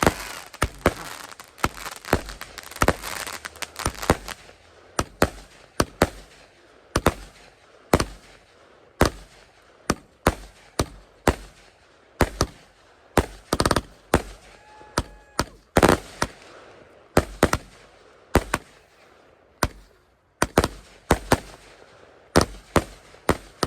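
Fireworks going off in a long string of sharp bangs, about one or two a second. The first few seconds are dense with crackling between the reports.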